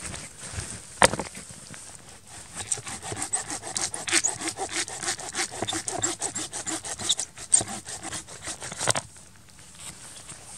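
Small hand saw cutting into a seasoned dead log with rapid, even back-and-forth strokes, starting about two seconds in and stopping near the end. A single sharp knock comes about a second in.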